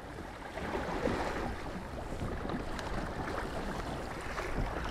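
Water rushing and splashing along a kayak's hull as it runs downwind under sail, with wind buffeting the microphone.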